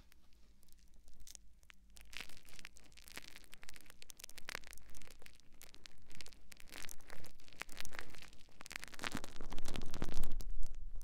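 Sponge squeezed and rubbed close to the microphone: dense crackling and scratching that grows louder from about two seconds in and is loudest near the end.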